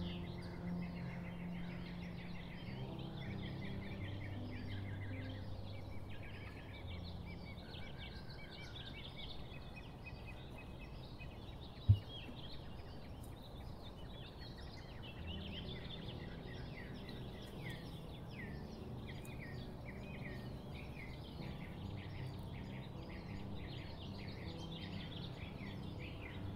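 Many small birds chirping and singing continuously, over soft low held tones of background music that fade out about a third of the way in and return later. A single sharp click near the middle is the loudest sound.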